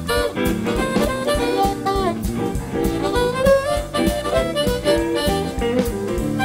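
Live blues band led by an amplified diatonic harmonica, played cupped against a microphone, its notes bending and sliding in pitch. Drums keep a steady beat under bass, electric guitar and keyboard.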